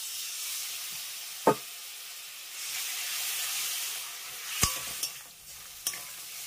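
Spiced tomato masala sizzling in hot oil in a metal kadai after a splash of water is poured in. It is stirred and fried down with a steel spatula, which knocks against the pan about one and a half seconds in and again, louder, near five seconds.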